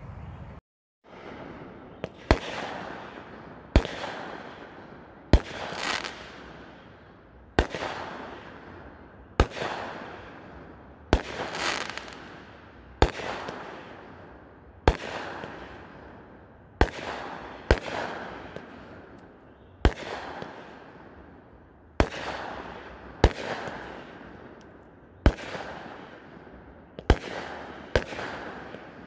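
Consumer aerial fireworks launched from the ground, firing shell after shell: a sharp bang about every one and a half to two seconds from about two seconds in, each followed by a fading crackle.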